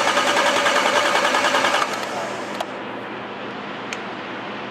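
Starter cranking the Dodge Dakota's engine in an even, pulsing rhythm for about two seconds, then stopping without the engine catching. The injectors are getting no fuel signal through the wiring left from an LPG conversion, so the engine cranks but will not start. A faint click or two follows.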